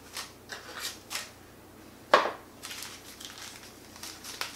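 A small packet of spare drone propellers and parts being handled and opened by hand: a run of short crinkles and clicks, the loudest a sharp snap about two seconds in.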